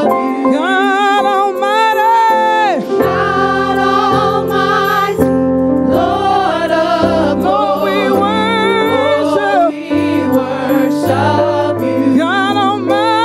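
Live gospel praise-and-worship singing: a praise team of singers on microphones, the voices wavering with vibrato, over instrumental accompaniment whose sustained bass notes come in about three seconds in.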